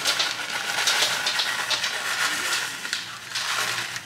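A plastic bag of shredded parmesan rustling as cheese is shaken out over pasta in a pan and spread by hand: a steady hiss with many short crinkles.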